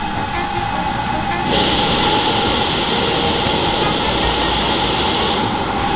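Pressurized white-gas camping stove burning with a steady roar under a small camping kettle, the water coming to the boil. About a second and a half in, the hiss grows louder and brighter.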